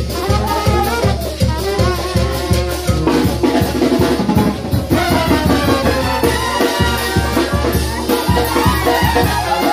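Live brass band playing a lively dance tune, brass carrying the melody over a steady bass-drum beat.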